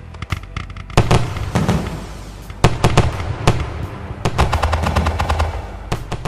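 Fireworks going off: a rapid string of sharp cracks and bangs, then a bigger burst about a second in followed by dense crackling with a low rumble and more loud bangs.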